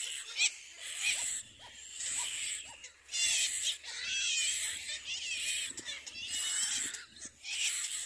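Little black cormorant chicks begging at the nest: high-pitched calls in repeated bursts, about one a second, some with a wavering pitch.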